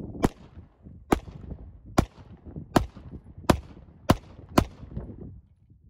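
Seven shots from an M1911A1 .45 ACP pistol, each sharp crack trailed by a short echo, coming faster toward the end.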